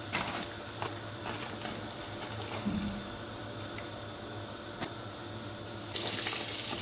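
Hot oil frying pişi dough in a frying pan: a steady low sizzle with a few light clicks of tongs against the pan. About six seconds in, the sizzling jumps suddenly louder as raw dough strips are dropped into the hot oil.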